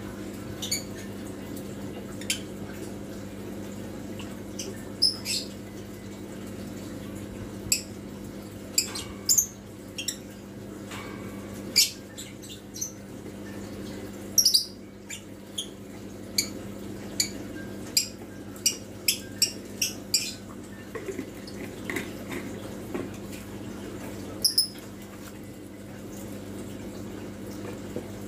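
A steady low electrical hum from the aquarium setup, with short, high chirps scattered irregularly over it, about twenty in all.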